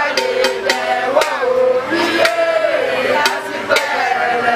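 A group of voices chanting a Yoruba festival song in unison. Sharp percussive clacks fall about twice a second over the singing.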